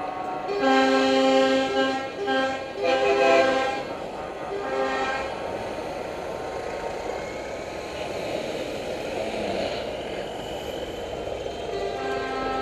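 Multi-tone air horns, the train-style horns fitted to show trucks, sounding a chord in about four loud blasts over the first five seconds. The chord is held more quietly again near the end, over a steady background din.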